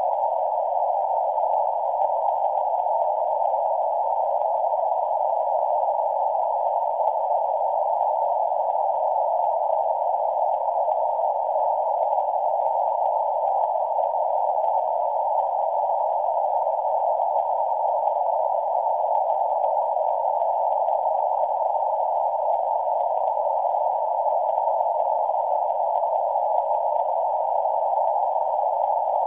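A steady, unchanging hiss of static, narrow and mid-pitched, with no tone, rhythm or voice in it.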